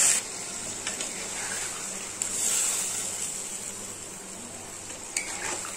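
Curry in a pan sizzling softly with water just added to the fried masala and vegetables, the hiss swelling briefly about two seconds in. A couple of light utensil clicks.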